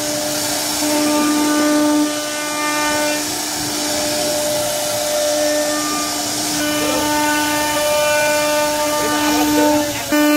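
CNC router spindle running at high speed with a steady whine while its bit cuts into wood, over the hiss of the cut. The whine dips briefly about two seconds in and again near the end.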